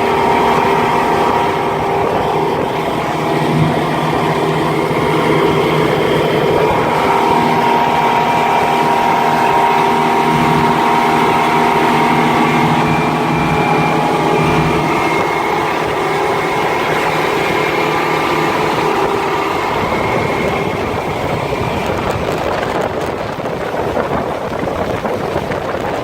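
Twin outboard engines of a World Cat 330TE catamaran running steadily underway, a droning hum over the rush of wind and water. Near the end the engine tone fades under louder wind noise.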